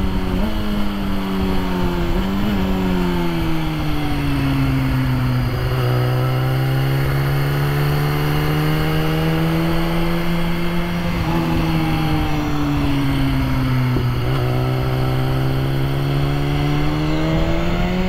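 BMW S1000RR inline-four engine running at highway speed, about 70 mph, heard through a Sena 30K helmet intercom microphone with wind noise underneath. The engine note sags and climbs slowly in pitch a few times as the throttle changes.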